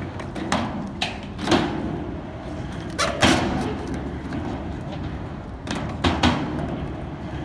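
Skateboard riding a wooden mini ramp: a steady rumble of the wheels rolling on the ramp, broken by several sharp clacks as the trucks and board strike the metal coping and slap back down.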